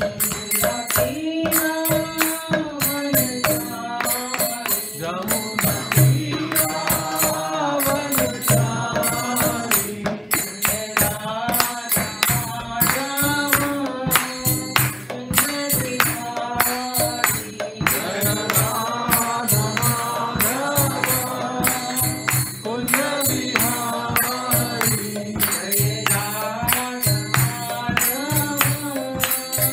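A woman singing a devotional chant, keeping time with small brass hand cymbals (karatalas) struck in a steady, continuous rhythm.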